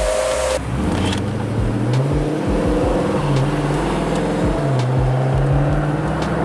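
A steady idling hum cuts off less than a second in. Then a car's engine is heard from inside the cabin while driving: the revs climb, drop back about two seconds in, and climb again later, over road noise.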